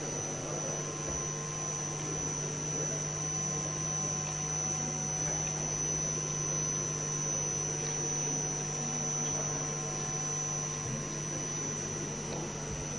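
Steady electrical hum with a faint, thin high-pitched whine above it, over quiet background noise.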